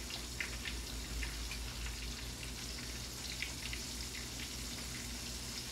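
Hot grease in a skillet sizzling, with scattered small pops and crackles, as flour-dredged fish pan-fries. A steady low hum sits underneath.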